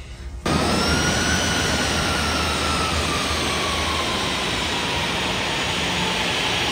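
Jet airliner engine running: a loud steady rush that starts abruptly about half a second in, with a whine that slowly falls in pitch.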